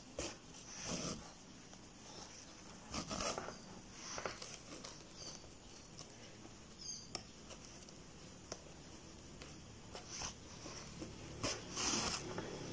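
Faint, intermittent rustling and soft swishes of yarn being pulled through crocheted stitches as a bag's side seams are sewn together by hand.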